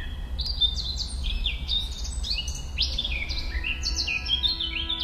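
A chorus of many small birds chirping, short falling chirps overlapping thickly, over a low steady rumble. Music fades in near the end.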